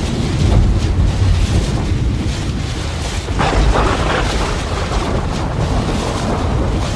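Storm wind battering the microphone: a loud, continuous low rumble under a rushing noise, with a brief louder rush about three and a half seconds in.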